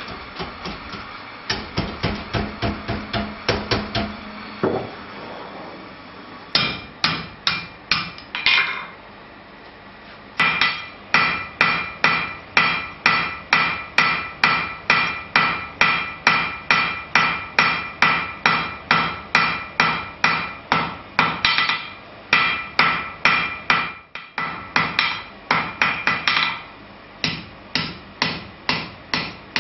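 Hand hammer striking glowing steel on an anvil, drawing the bar out to a tapered point. The strikes ring and come about two a second, with a few short pauses. At the start there is a quicker run of lighter blows, about four a second.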